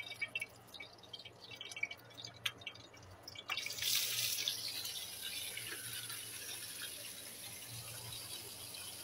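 Small whole fish sliding from a cutting board into a pan of hot oil. A few scattered pops of the oil, then a sudden loud sizzle a little over three seconds in that settles into a steady frying sizzle.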